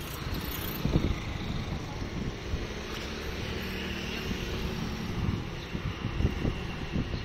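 Street traffic with scooters passing, under gusts of wind buffeting the phone's microphone.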